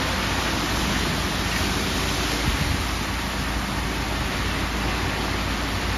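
Schwing Stetter truck mixer discharging concrete down a pipe chute: a steady rushing noise of wet concrete pouring, over the low, steady hum of the truck's engine turning the drum.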